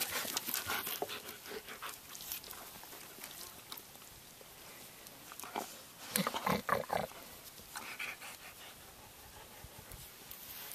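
Border collie making a brief cluster of short, low vocal sounds about six seconds in; otherwise quiet, with faint scattered clicks.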